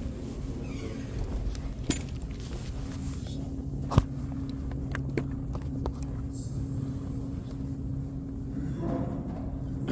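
Worshippers settling into their rows before the prayer: scattered soft knocks and clicks, with one sharp click about four seconds in, over a steady low hum.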